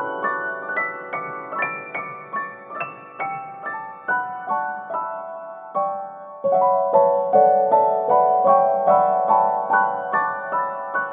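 Background piano music: a gentle melody of single notes, each struck and fading, growing louder just after the middle.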